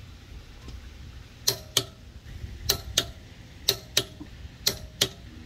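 Click-type torque wrench clicking on a wheel's lug nuts as each reaches its set torque, a 103 spec. Sharp clicks in pairs a quarter second apart come about once a second, four pairs in all, starting about a second and a half in.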